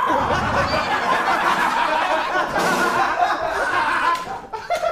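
A group of men laughing loudly together. It starts suddenly and dies down about four and a half seconds in.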